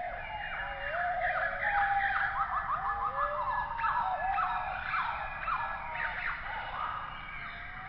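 Animal calls: a rapid run of high, falling squeals, several a second, over lower wavering tones, loudest in the middle.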